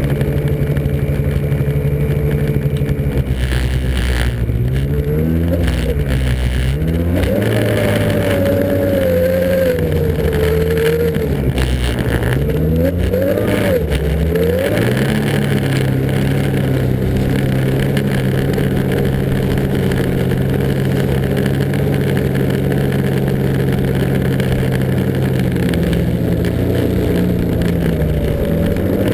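Snowmobile engine running, its pitch steady at first, then rising and falling repeatedly with the throttle for about ten seconds, then holding steady.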